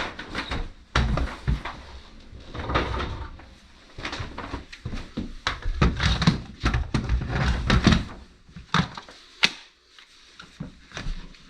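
Irregular knocks and clatter of tools and hard objects being handled, picked up and set down, with a sharp click near the end.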